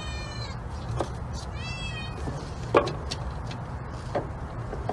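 Kitten meowing twice, the second call rising and falling in pitch, mixed with a few sharp clacks from the window blind slats as it pushes through them.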